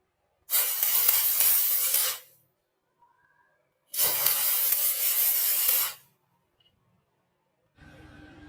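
Two loud bursts of hissing spray, each lasting about one and a half to two seconds, a couple of seconds apart.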